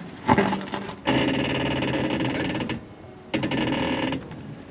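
A Mercedes off-road vehicle's engine pulling hard under throttle in two steady, buzzy bursts, each held at an even pitch, with a knock about a third of a second in.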